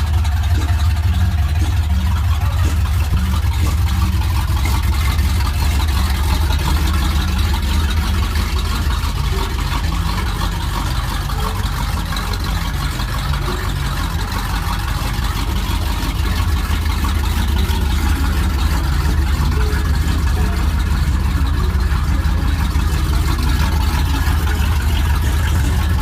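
1950 Mercury's engine idling steadily with a low rumble; the level eases slightly about halfway through.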